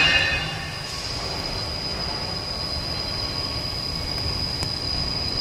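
Pipe welding turning roll running: a steady high-pitched whine over an even mechanical running noise. The whine comes in about a second in and holds steady.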